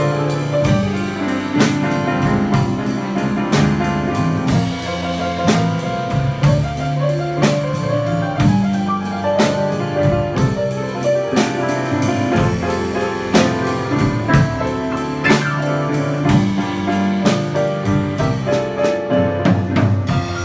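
Live band playing an instrumental passage: an upright piano played with busy chords and runs, backed by a drum kit keeping a steady beat.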